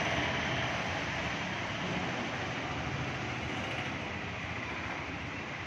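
Steady running of a vehicle engine mixed with passing road traffic, a little louder at the very start and then even.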